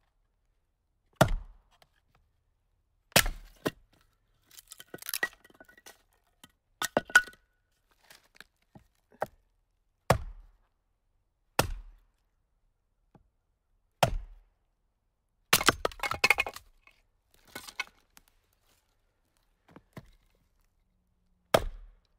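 A dozen or so hard, sharp knocks at uneven intervals of one to two seconds. Several are followed by a short crackling clatter, like something brittle breaking apart.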